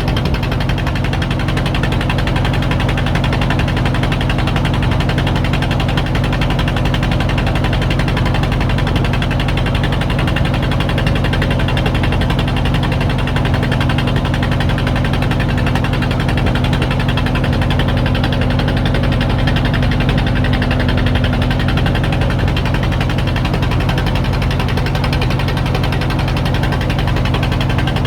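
An engine running steadily and loudly at one even speed, with a steady low hum.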